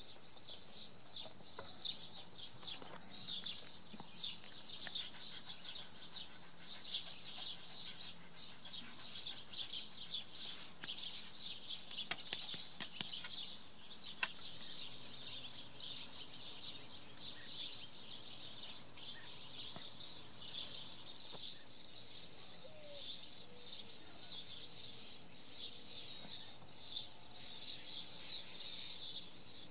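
Birds chirping in a continuous, dense, high-pitched chorus, with two short sharp clicks about halfway through.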